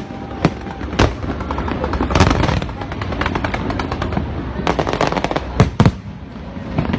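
Fireworks bursting overhead: a string of sharp bangs and crackling, bunched about two seconds in and again about five seconds in, over a steady rumble.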